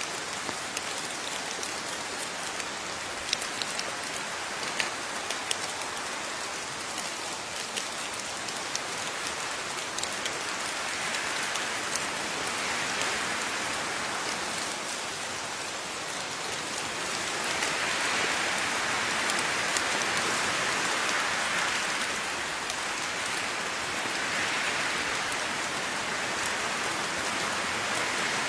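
Steady rain falling on surfaces, with distinct individual drops ticking in the first part and the rain growing heavier and denser about halfway through.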